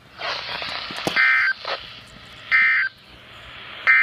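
NOAA Weather Radio Emergency Alert System (SAME) header: three short bursts of two-tone digital data screech about 1.4 seconds apart, over radio hiss, marking the start of a new alert message.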